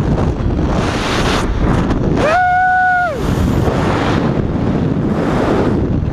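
Heavy wind buffeting a hand-held action camera's microphone during a fast cable-controlled drop from a tower. About two seconds in comes a short, high held cry that rises, holds and falls.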